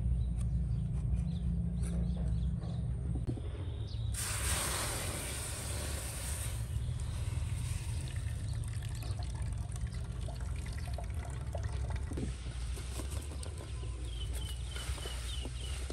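Liquid pouring in a stream that starts suddenly about four seconds in, heaviest for the first couple of seconds, then trickling on more lightly.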